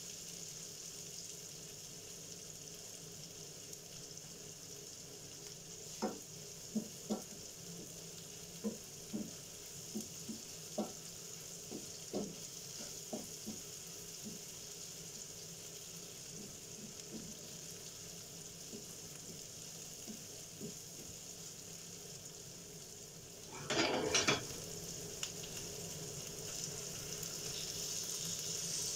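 Sliced onions and bay leaves sizzling in oil in a nonstick frying pan, with a wooden spatula knocking and scraping against the pan in a run of sharp taps in the first half. About three-quarters of the way through there is a short loud burst as raw chicken pieces go into the pan, and the sizzle then grows louder.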